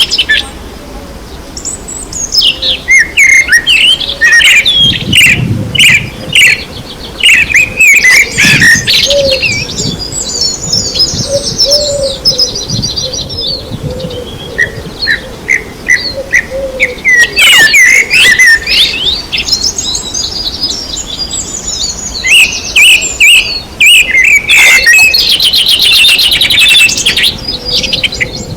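Several songbirds singing together: a busy mix of chirps and whistled notes, with rapid trills about ten seconds in and again near the end.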